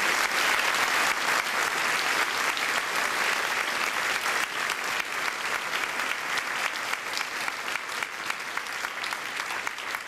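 Audience applauding, a dense steady clapping that slowly dies down toward the end.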